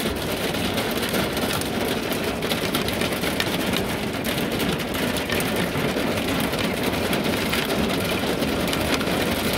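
Hail mixed with rain striking the roof and windows of a camper van, heard from inside: a dense, steady patter of many small hits.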